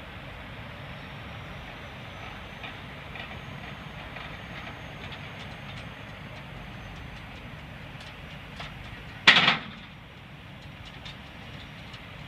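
Steel hitch and tongue parts of a trailer-mounted cattle squeeze chute being unhooked by hand: light metal clicks and rattles, then one loud metal clank about nine seconds in, over a steady hiss.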